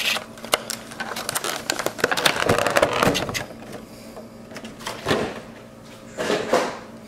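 Foil booster packs and clear plastic packaging being handled, rustling and crinkling with irregular small taps and clicks. There are louder clusters about two and a half seconds in, around five seconds, and near the end.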